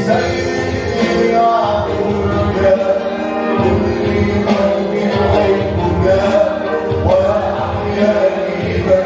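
Christian worship music with singing: a wavering sung melody held without clear words over sustained chords and a steady bass.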